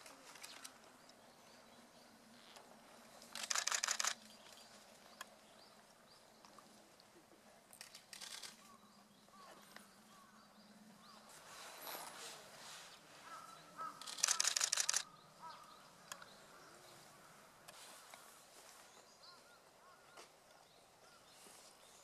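Camera shutter firing in rapid continuous bursts: a fast run of clicks lasting under a second about three and a half seconds in, a weaker short run around eight seconds, and a second long run around fourteen seconds.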